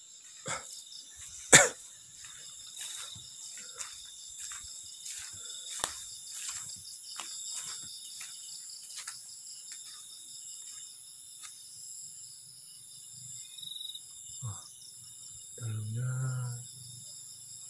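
Night insect chorus: crickets trilling steadily and high-pitched, with scattered clicks and knocks, the sharpest about one and a half seconds in. A brief low voice comes in near the end.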